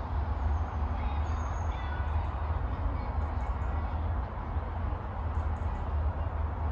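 Steady low rumble of wind on the microphone, with a few faint bird chirps about a second in.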